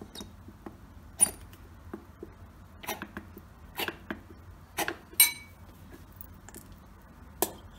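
About six light clinks and taps of a plastic squeeze bottle and a metal spoon against a ceramic bowl, spread out with pauses between them, a couple ringing briefly.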